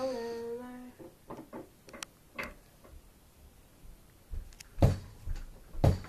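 A voice humming one held note that stops about a second in, then scattered light knocks and clicks, with two louder thumps near the end.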